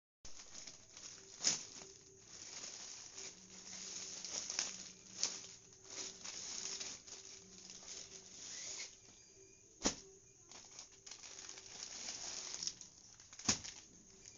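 Parcel packaging rustling and crinkling as it is handled and opened by hand, with four sharp clicks or snaps spread through it.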